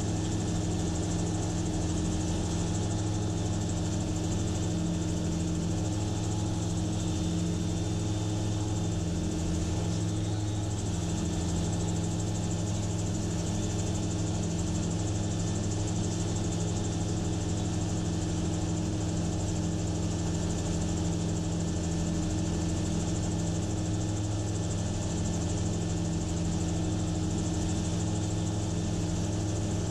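Gyrocopter engine and propeller running steadily in cruise flight, an unchanging drone with a steady rushing noise over it.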